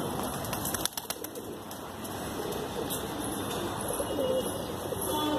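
Domestic pigeons cooing in a rooftop loft, with a brief flutter of wings about a second in.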